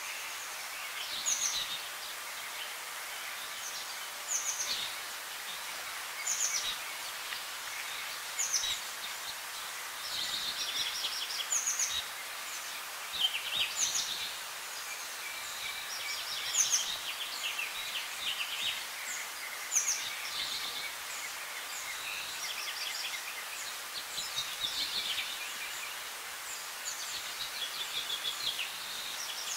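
A bird calling over and over, short high chirps that fall in pitch, coming every two to three seconds over a steady background hiss.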